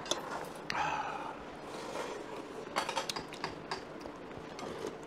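Cutlery clinking against the pot and bowls while eating, with several short, scattered clinks.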